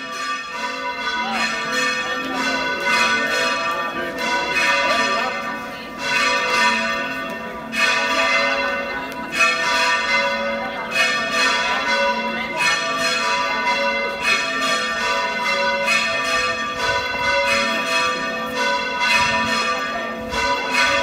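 Church bells ringing in a continuous peal, one strike after another over the ringing of the ones before.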